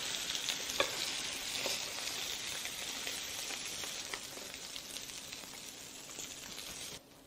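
Moreton Bay bug halves sizzling in a hot ridged grill pan, a steady hiss, with a few light clicks of metal tongs as they are lifted out onto a plate. The sizzle eases a little and cuts off just before the end.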